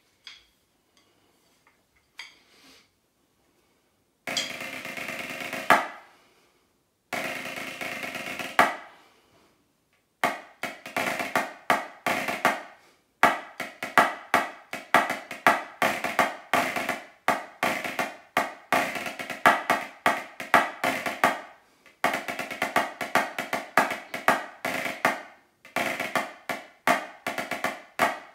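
Drum practice pad struck with wooden drumsticks. After a few light taps come two short rolls, each about a second and a half. From about ten seconds in there is a steady stream of rudiment patterns with regular accented strokes.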